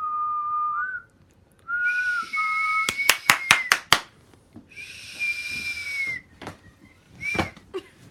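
A person whistling several held notes of about a second each, mostly level with small dips and rises in pitch. A quick run of about six sharp clicks comes in the middle.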